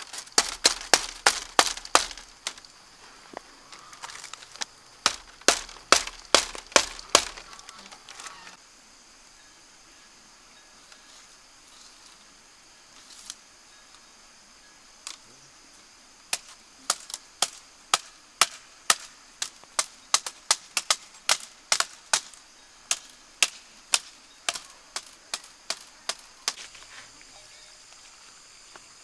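A machete chopping bamboo trellis poles: quick runs of sharp strikes, about four a second, near the start and again around a quarter of the way in, then after a pause a steady run of about two strikes a second through most of the second half. A steady high insect drone runs underneath.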